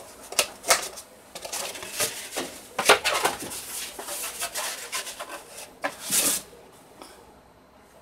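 A small dish and a plate knocking and scraping against each other and the countertop as the dish is turned upside down onto the plate, with cloth rubbing over it; a run of sharp knocks, then a longer scrape about six seconds in.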